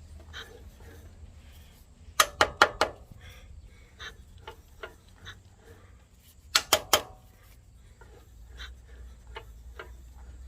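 Hand tools working on small engine parts, metal on metal: two quick runs of about four sharp taps each, with lighter clicks and clinks between.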